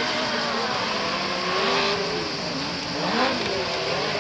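Several autocross buggy engines racing on a dirt track, revving up and dropping back, their overlapping pitches rising and falling.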